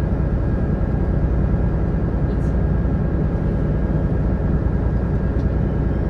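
Steady low drone of the sightseeing boat's engine, heard on board while under way.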